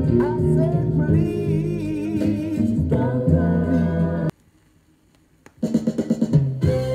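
A 45 rpm vinyl single playing on a turntable: a sung line over bass and drums. About four seconds in the music stops dead for just over a second, then drum hits come back in and a held note enters near the end.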